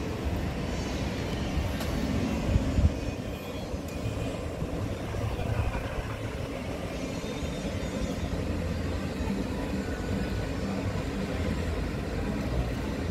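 Outdoor city street ambience: a steady low rumble with a few brief knocks about two and a half seconds in.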